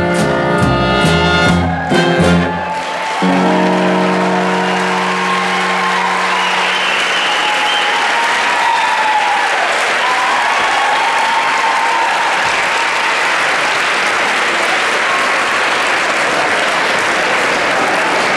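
Big-band swing music with brass plays to its end, finishing on a held final chord about three seconds in, followed by a large audience applauding steadily with some cheering.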